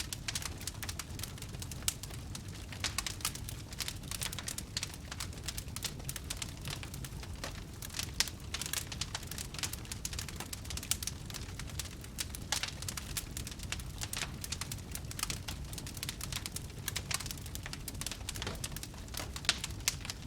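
Fire crackling: a dense, irregular run of pops and snaps over a steady low rumble.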